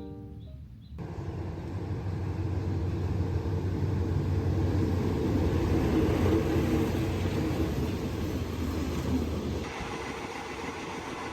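Music ends within the first second, giving way to the ride noise of a moving passenger train: a steady low rumble with rattle, easing off a little near the end.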